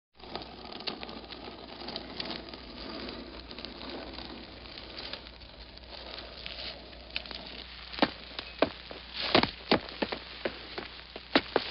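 An isolated sound-effects layer of steady crackling and pattering, like grit and small debris. Sharp snaps and clicks grow louder and more frequent from about eight seconds in.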